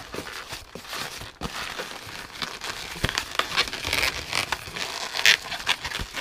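Inflated latex modelling balloon (a 160) being folded and twisted by hand: irregular rubbing, squeaking and crinkling of latex against itself and the fingers, with scattered sharp clicks.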